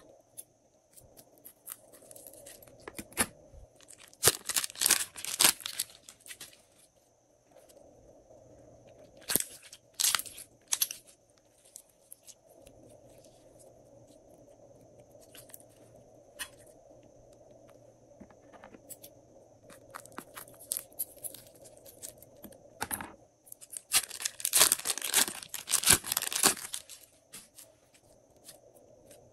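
Glossy slime being squeezed, stretched and mixed by hand, giving sticky crackling and popping in three dense bursts (a few seconds in, around ten seconds, and near the end) with scattered single clicks between.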